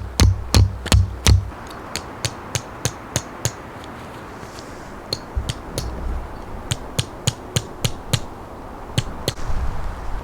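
Background music with a steady percussive beat: evenly spaced clicks about three a second, with low thumps under them at first, a short break midway, then the clicks again.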